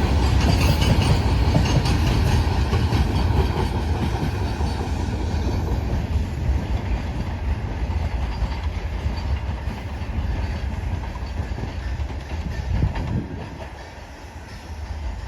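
Freight train of petroleum tank wagons rolling past, wheels clattering on the rails with a heavy rumble that gradually fades toward the end.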